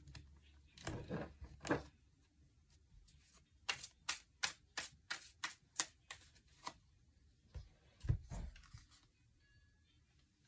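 Tarot deck being shuffled by hand: a run of about nine quick, sharp card snaps, about three a second, then a couple of low thumps about eight seconds in as the deck is set down on the wooden table.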